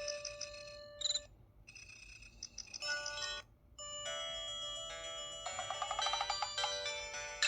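Curitel PH-L4000V mobile phone playing its built-in ringtone melodies through its speaker, bright and chime-like. The melody stops about a second in, and after short gaps a different tune starts about four seconds in, as the ringtones are switched.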